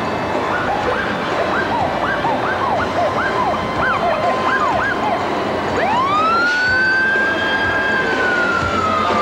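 Fire engine siren on the move, first in a fast yelp of quick rising-and-falling whoops about two a second, then about six seconds in switching to a long wail that rises and slowly falls away. Under it runs the steady rumble of the truck's engine and the road.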